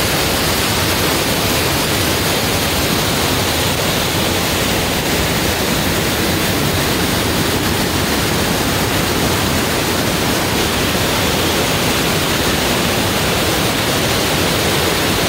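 Steady roar of rushing water from a waterfall cascading over rock ledges into a creek.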